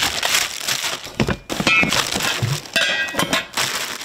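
Thin plastic parts bags crinkling as they are torn open and pulled apart by hand, with small metal parts clinking together twice, about a second and a half and three seconds in.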